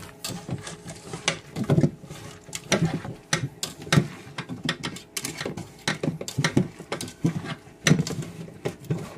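Hands kneading and squeezing shredded banana heart wet with salt and vinegar in an aluminium pot: irregular wet squishing and crackling, a few strokes a second. This is the massaging that draws out the heart's bitterness and stringy fibres.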